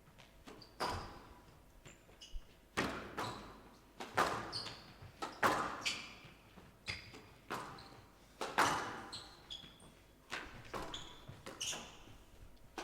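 Squash rally: the ball is struck with the racket and bangs off the court walls about once a second, each hit echoing briefly. Short squeaks of players' shoes on the court floor come between the hits.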